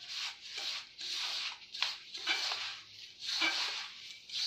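Hand mixing semolina and curd in a stainless steel bowl: repeated rustling, scraping strokes of crumbly dough against the steel, about one a second.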